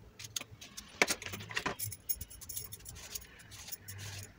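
Vegetable peeler scraping strips of skin off an eggplant, with soft scraping and a few sharp clicks about a second and a second and a half in.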